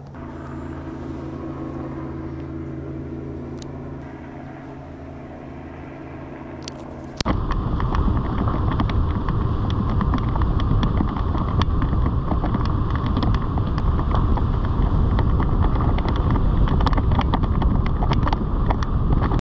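A car moving along an unpaved road: a steady low hum at first, then, from an abrupt change about seven seconds in, a much louder rumble with many small crackles.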